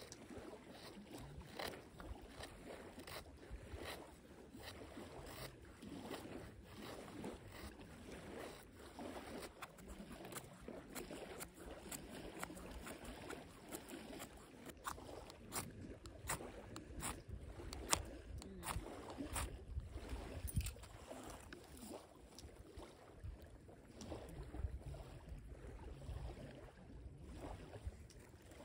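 Knife blade shaving thin curls off a stick of softwood to make a feather stick: repeated short scraping strokes, some sharper than others, over a low background rumble.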